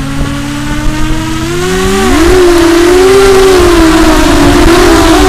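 Electric motors and propellers of a small FPV multirotor drone, running steadily at low speed and then throttling up about two seconds in to a loud, higher, wavering whine as it readies for takeoff. Several motor pitches weave around one another.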